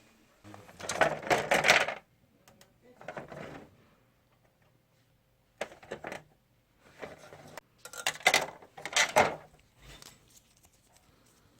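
Small hard parts clinking and clattering as they are handled, in five short bursts with quiet between them, like screws and plastic pieces from an air conditioner being taken apart.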